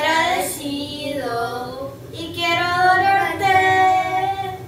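Boys singing a song, with long held notes in the second half.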